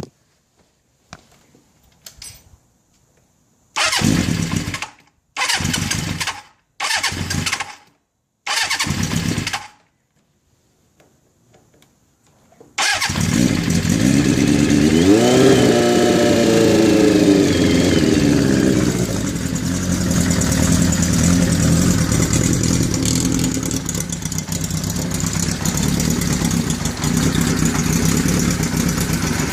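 A 1981 Kawasaki GPz550 inline-four is cranked on its starter in four short bursts, the first start since 1994 after a full restoration. After a brief pause it fires, revs up and back down once, and settles into a steady idle, set high, through a Yoshimura exhaust.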